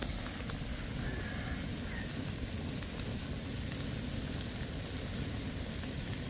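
Steady outdoor background noise: a constant low rumble with faint, short, high chirps scattered through the first few seconds.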